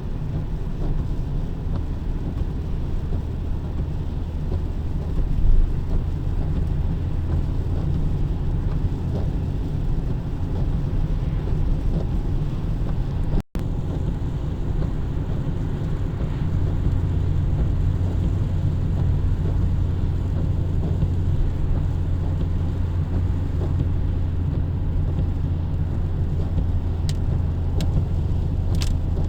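A car driving on a road: steady low rumble of engine and tyres, with a brief dropout about halfway and a couple of faint ticks near the end.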